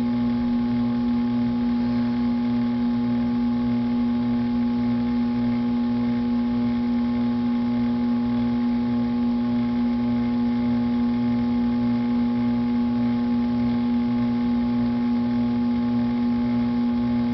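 Electric potter's wheel motor running with a steady hum, a fainter throb pulsing regularly beneath it.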